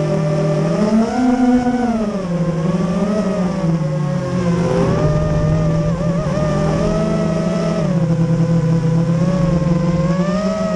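Racing quadcopter's electric motors whining, the pitch swinging up and down several times as the throttle changes.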